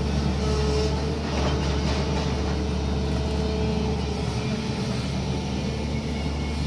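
Diesel engine of a SANY excavator running steadily, a low hum with a steady higher whine over it.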